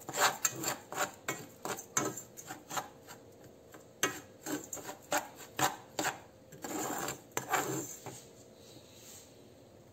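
Metal spoon stirring and scraping dry, powdery soil in an aluminium saucepan, a gritty rasping with frequent clinks of the spoon against the pan's sides and bottom. The stirring quietens about eight seconds in.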